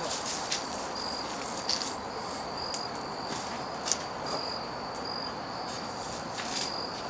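Crickets chirping: a high, steady, repeating chirp, with a few faint knocks or clicks here and there.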